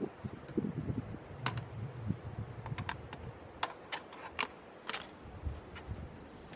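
A series of irregular light clicks and taps, with some low rustling in the first couple of seconds.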